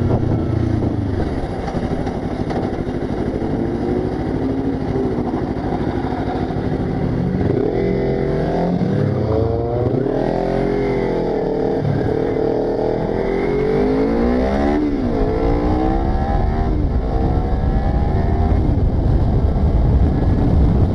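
Sport motorcycle engine running while riding, its pitch repeatedly rising and falling as the rider accelerates and eases off, a little louder near the end.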